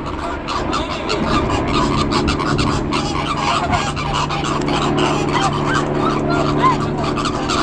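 A flock of flamingos honking in a dense, continuous chorus of overlapping calls, alarmed by a helicopter. Under the calls, a steady low hum sets in about two seconds in.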